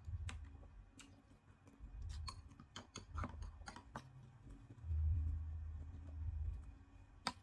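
Close-up eating sounds: chewing, and a metal spoon clicking and scraping against a plate, with a quick run of clicks a few seconds in and one sharper click near the end.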